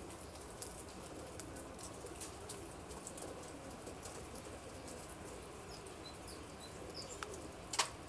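Pigeons cooing in low, wavering calls, with scattered light ticks throughout. A small bird gives a few short high chirps about six seconds in, and a sharp click comes near the end.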